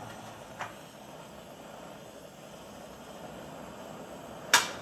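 Oxy-acetylene cutting torch flame hissing steadily as it heats a steel bar for bending. A faint click about half a second in, and near the end one sharp, loud hammer tap, the loudest sound.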